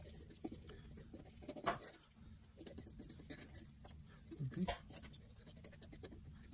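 Quiet, irregular scraping and light clicking of a small tool spreading grease over a metal AR-15 bolt carrier, with a couple of sharper metal ticks.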